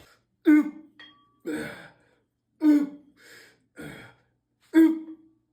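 Short strained grunts and gasps from a person's voice, about one a second, each dropping in pitch and cut off into dead silence: gym-style exertion noises.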